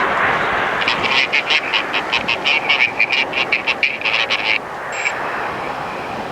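Jet roar of a departing Boeing 787-9 airliner, slowly fading. Over it runs a rapid chattering of sharp chirps, about seven a second, which cuts off suddenly; a short high beep follows.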